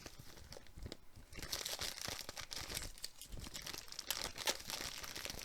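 Packaging crinkling and rustling as an advent calendar compartment is opened and its wrapped contents handled. A few light knocks come first, then dense crackly crinkling from about a second and a half in.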